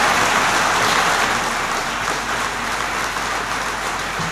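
Audience applauding, slowly tapering off.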